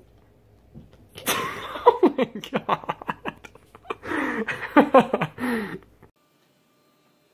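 A person laughing in two bouts of breathy giggles, cutting off suddenly about six seconds in.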